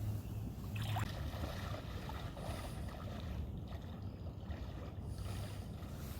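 Kayak paddle dipping and splashing in floodwater, with a few brief splashes over a steady low rumble of wind on the microphone.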